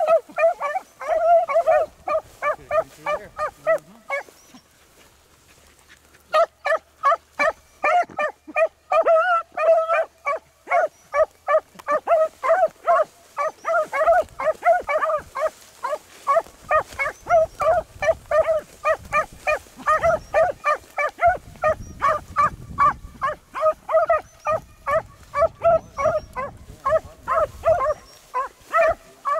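Beagles barking in short, quick, repeated barks, about three a second, as hounds give tongue while trailing a rabbit. The barking stops briefly about four seconds in, then picks up again and keeps on steadily.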